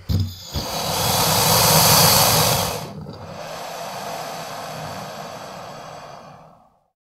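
Gorgonopsid creature sound effect: two or three short snorts, then a long breathy hissing exhale. It swells to its loudest about two seconds in, then drops to a quieter rasping breath and fades out near the end.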